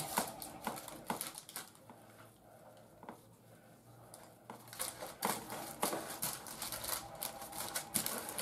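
Silicone spatula spreading and smoothing a thick, stiff cake batter in a parchment-lined tin: irregular soft scrapes, pats and clicks, sparser in the middle.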